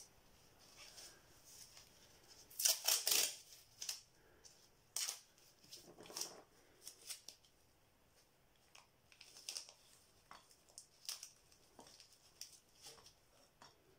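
Painter's tape being pulled, torn and pressed down around a pot: a cluster of crackly rasps about three seconds in, two more around five and six seconds, then scattered soft crackles and taps.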